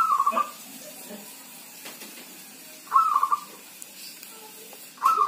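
Zebra dove (perkutut) cooing its song three times. Each phrase is a short burst of rapid, stuttering notes; the second comes about three seconds after the first and the third about two seconds later.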